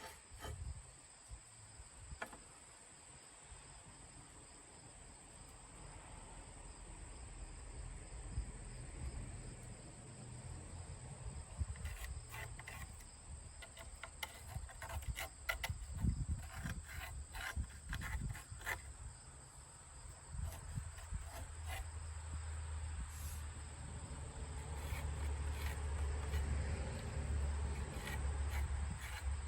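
Faint, steady, high-pitched insect chirring, with a low rumble that grows in the second half and a scattered run of light clicks and taps around the middle.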